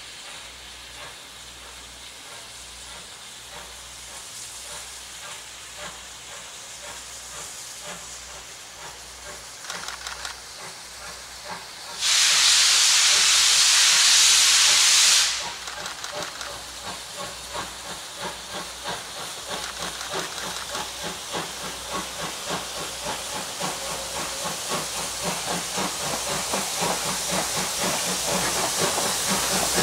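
JNR Class C58 steam locomotive working toward the listener, its exhaust beats growing steadily louder. About twelve seconds in, a loud burst of steam hissing lasts about three seconds.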